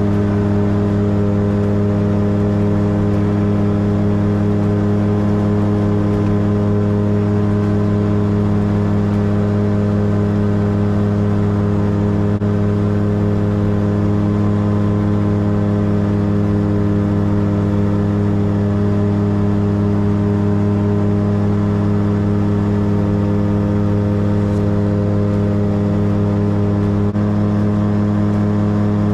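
Steady cruise drone of a Titan Tornado light aircraft's engine and propeller, heard from inside the cockpit.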